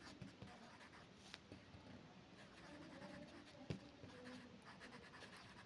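Faint scratching of a pencil writing cursive on a paper workbook page, with one light tick a little past the middle.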